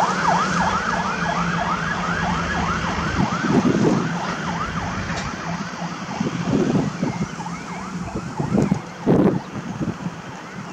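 Fast yelp siren of a Scania G480 heavy rescue truck, its pitch sweeping up and down about three times a second over the truck's diesel engine, both fading away over the first few seconds as the truck drives off. After that, a few low gusts of wind on the microphone.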